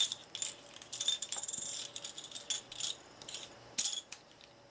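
Small plastic game discs clicking and clattering against each other and a wooden tabletop as they are slid apart by hand to be counted: a quick run of clicks in the first two seconds, then a few scattered clicks.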